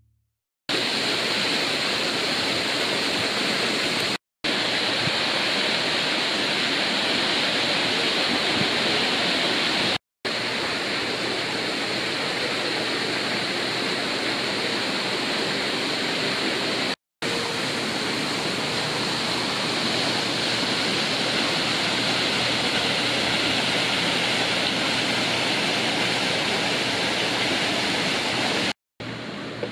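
Steady rushing water, loud and even, broken by four split-second dropouts.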